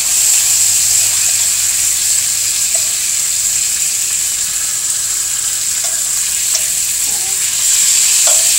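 Thin-cut chicken breasts sizzling steadily as they brown in olive oil in a hot skillet, a constant high hiss of frying.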